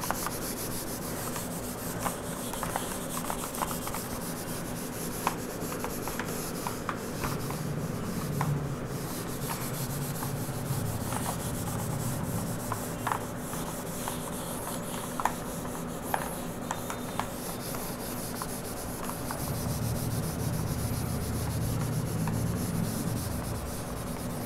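Handheld whiteboard eraser rubbing across a whiteboard in repeated wiping strokes, with scattered light clicks.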